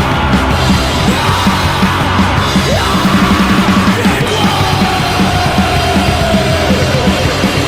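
Loud, distorted punk rock played by a full band of guitar, bass and drums, with a fast, driving beat and shouted vocals.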